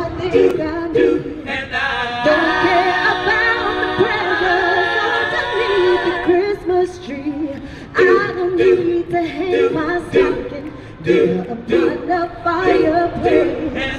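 A cappella group of female and male voices singing in multi-part harmony through handheld microphones and stage speakers, with long held chords a couple of seconds in and shorter, more broken phrases in the second half.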